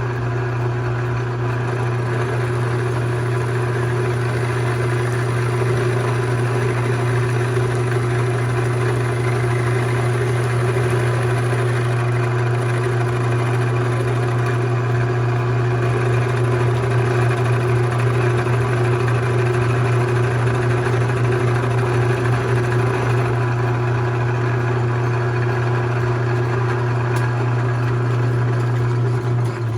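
Worn metal lathe running through a machining cut: a loud, steady motor hum with a constant whir, which cuts off right at the end. The owner says the machine has had its good days.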